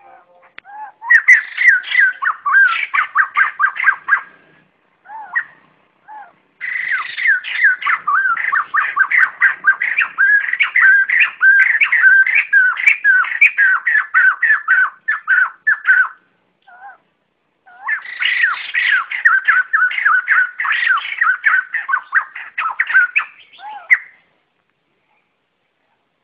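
White-crested laughingthrush flock call: three long bursts of rapid repeated calling notes, the longest about nine seconds, with short pauses holding a few single notes between them.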